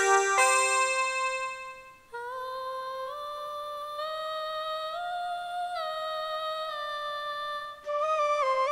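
Sampled instrument patches played on a Kontakt sampler. A plucked sitar-chorus patch rings out and fades, then about two seconds in a sampled female solo voice sings wordless held notes, sliding smoothly between pitches. Near the end a louder flute patch takes over.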